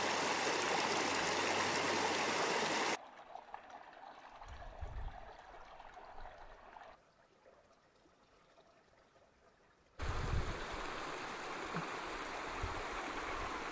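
Shallow mountain creek running over rocks: a steady rush of water that cuts off abruptly about three seconds in, leaving only faint water sound, then comes back about ten seconds in with a few low thumps.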